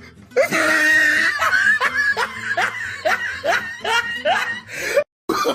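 A man's evil laugh sound effect: a rapid string of short laughing syllables, each sliding in pitch. It breaks off in a brief silent gap near the end.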